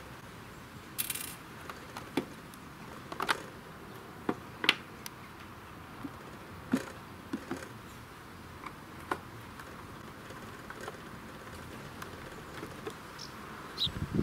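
Screwdriver working on the plastic housing of a 40-volt lawnmower battery pack as it is opened: scattered small clicks and knocks of metal tool and plastic, with a short scrape about a second in, over a steady background hiss.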